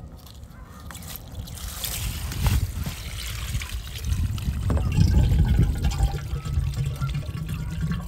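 Water trickling and gurgling out of a portable water pump's open drain plug as the water held in its suction hose drains, growing louder about halfway through.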